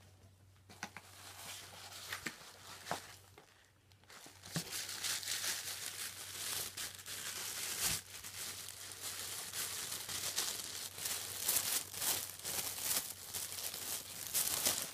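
Tissue paper wrapping crinkling and rustling as it is pulled open by hand: a few light rustles and clicks at first, then dense, continuous crinkling from about four and a half seconds in.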